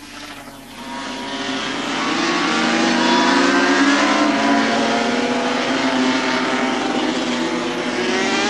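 Several Yamaha TZ750 four-cylinder two-stroke racing motorcycles running at racing speed. The engines build over the first three seconds as they close in, then hold a steady, overlapping note.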